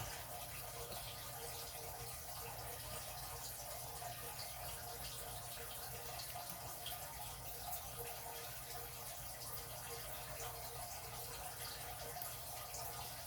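Faint steady hiss-like background noise, with a few very faint light ticks from a pick and tension wrench working the pins of a brass pin-tumbler padlock.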